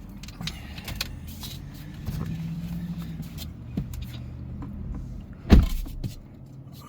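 A car's electric window motor whirs with a low steady hum for a few seconds. One loud thump comes about five and a half seconds in.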